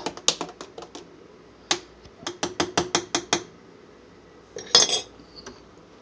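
A spoon clinks against the glass beaker of a French press while stirring the coffee grounds into the hot water. There are a few taps at first, then a quick run of about ten taps between roughly two and three and a half seconds in, and a short louder clatter about five seconds in.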